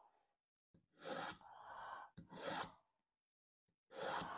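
A dull steel kitchen knife drawn through a Smith's mini pull-through sharpener, rasping on each pass as the slot grinds the edge. Three strokes, about a second and a half apart.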